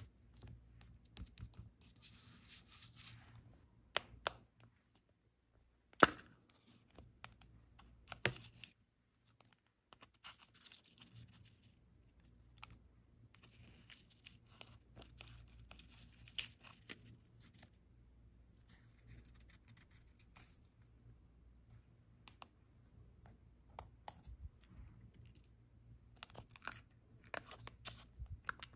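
Paper being handled and torn at a desk, with stretches of soft rustling and scattered sharp taps and clicks, one much louder than the rest about six seconds in.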